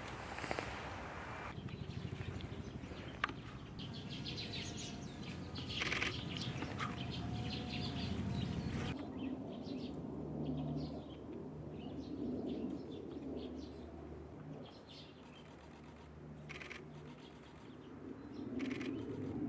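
Scattered short, high bird calls and chirps over a low steady background rumble, with a few sharp clicks.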